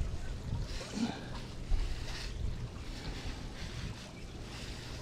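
A brush scrubbing mold off the pool enclosure's screen frame in repeated strokes, over a low rumble of wind on the microphone.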